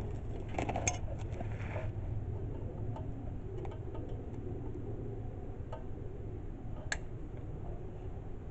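Small clicks and taps of hand tools and parts being handled while fuel lines are taken off a generator, over a steady low hum. There is a cluster of clicks in the first two seconds and one sharp click about seven seconds in.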